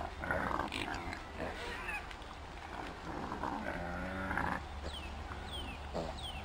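Spotted domestic pigs grunting and squealing in short calls, with a clear one about four seconds in. Three short falling whistles sound between about five and six seconds.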